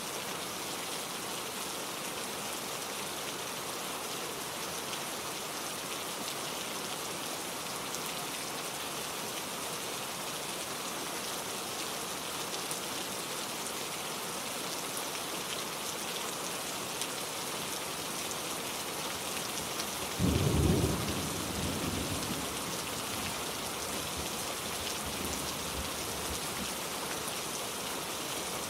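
Steady rain falling, with a low clap of thunder about twenty seconds in that rumbles off over a couple of seconds.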